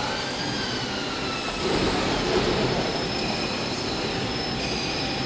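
Butyl rubber coating machine running: a steady mechanical drone with thin, high, steady whines. In the first second and a half a squeal glides up and back down, and from about two seconds in a louder, lower noise joins.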